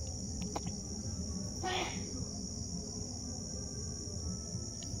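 Steady high-pitched chirring of crickets over a low background hum, with a voice calling out briefly about two seconds in.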